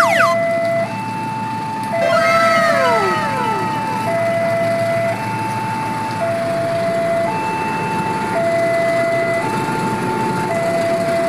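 Railway level-crossing warning alarm sounding a two-tone hi-lo signal, each tone held about a second, over a steady hiss. Right at the start, and again about two seconds in, several tones sweep steeply downward in pitch, the loudest at the very start.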